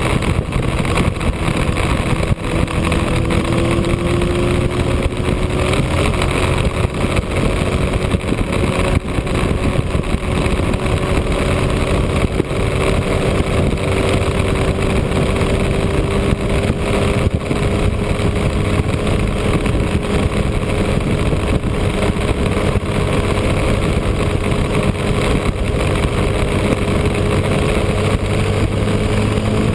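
Motorcycle engine running steadily at highway cruising speed, its tone creeping slowly higher, under a constant rush of wind and road noise.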